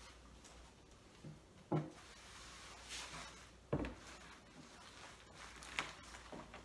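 Cloth rustling as vegetables are wrapped and rolled into a red cloth bundle, with two soft thumps about two seconds apart and a lighter tap near the end as bundles are handled and set down on the cloth-covered table.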